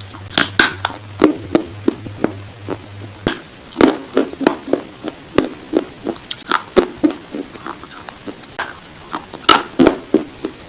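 Dry baked clay being bitten and chewed: an irregular run of sharp crunches and cracks, about two or three a second. A low hum underneath stops about three seconds in.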